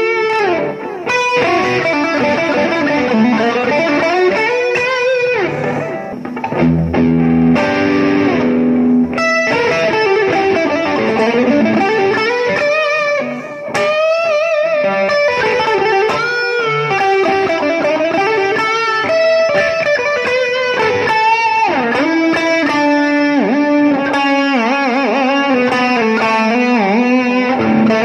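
Electric guitar playing a lead solo through an overdrive pedal, with bent and wavering notes, a quiet quarter-note tape-style echo from a TC Electronic Nova Delay and a little reverb behind it. A short stretch of chords comes about a quarter of the way in. About halfway through, after a brief dip, the overdrive is switched to higher gain.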